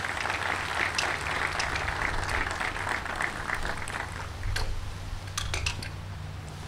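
Audience applauding, the clapping thinning out after about four seconds, with a few sharp clicks near the end.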